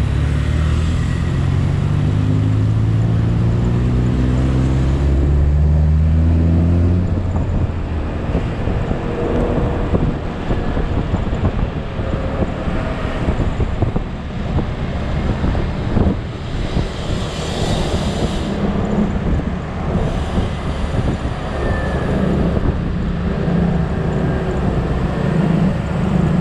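Automatic scooter riding: the engine note rises steadily in pitch for the first several seconds as it accelerates, then wind and road noise take over, with a steady engine hum again near the end.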